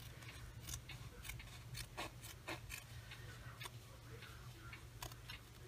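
Small embroidery scissors cutting through a folded double layer of lining fabric: faint, irregular snips.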